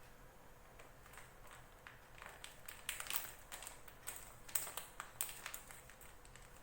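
A plastic bag crinkling, with light irregular taps and clicks, as it is handled and pressed in a hand-press plastic bag sealer. The sealer is faulty and fails to heat, so the bag does not seal. The crackling starts about two seconds in and dies down near the end.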